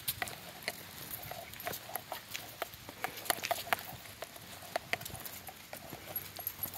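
Small dogs walking on leashes over a concrete sidewalk: light, irregular clicking and tapping of their claws on the pavement, about three clicks a second.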